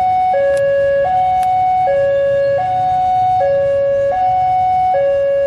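Two-tone electronic warning alarm, alternating steadily between a higher and a lower note about every three-quarters of a second, with an approaching diesel train's low rumble underneath.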